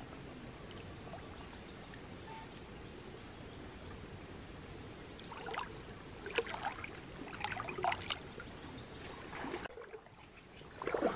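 Shallow stream water splashing and sloshing as hands move through it, a run of short splashes starting about halfway in, over a steady background hiss.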